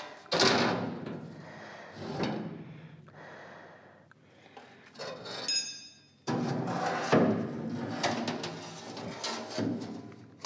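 Gloved hands scraping, rubbing and knocking in a lathe's steel chip pan and coolant sump, in several separate bouts, with a brief high squeak about halfway through.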